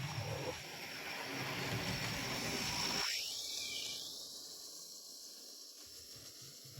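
Hornby 00 gauge model locomotive running on its track, a steady electric motor hum and wheel rumble that thins to a faint hiss after about three seconds and keeps fading.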